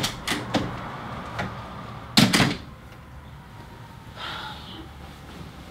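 A few short knocks and thumps, the loudest a double knock about two seconds in, followed by a faint brief rustle-like sound a little past the middle.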